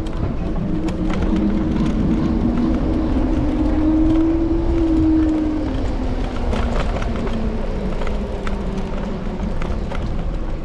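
Street riding noise heard from a handlebar-mounted camera on an electric scooter: low wind and road rumble, a steady pitched vehicle hum that is strongest in the first half and then fades, and light scattered rattles.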